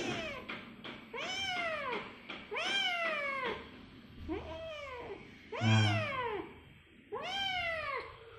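Kitten meowing repeatedly: six short calls, each rising then falling in pitch, about one every second and a half.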